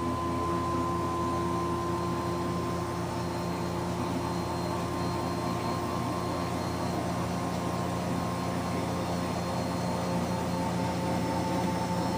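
Electric lift of a Sea Ray 270 Select Executive's engine hatch running as the hatch slowly rises, a steady motor drone with a few held tones that shift slightly past the middle.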